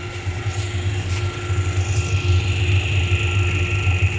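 DC motor driving a separately excited DC generator, the coupled set running steadily at about 1500 rpm: a low hum with a hiss that grows stronger about two seconds in.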